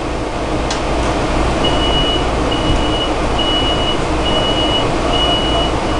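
Electronic warning beeps at one high pitch, about one a second, starting a couple of seconds in, typical of a commuter train's door-closing warning, over the steady low hum of the Metro-North train standing at the platform. A single sharp click comes just before the beeping.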